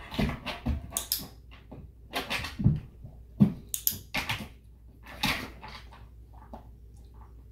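A German shepherd moving around a plastic perch platform during clicker training: an irregular run of paw steps, knocks and taps, with the dog's sniffing at the floor for treats and sharp clicks of a training clicker among them.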